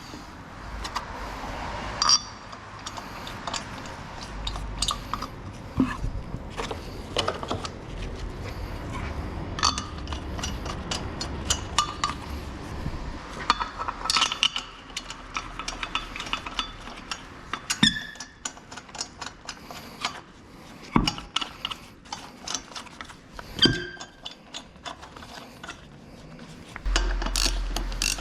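Hand tools and metal brake parts clinking and knocking during front brake work on a car. The strikes are scattered and irregular, with a heavier low thump near the end.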